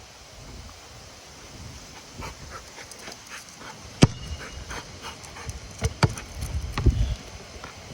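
A dog panting, with scattered clicks and two sharp knocks, about four and six seconds in.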